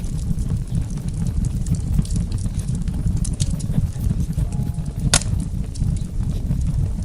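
Wood fire burning in a fireplace: a steady low rumble of flames with scattered crackles and one sharp pop about five seconds in.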